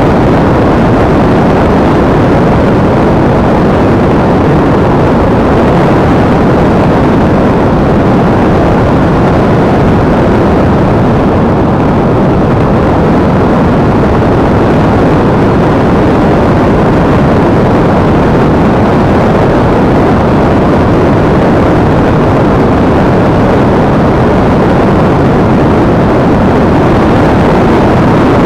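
Loud, steady rush of wind buffeting the microphone of an action camera mounted on an EasyStar RC model plane in flight.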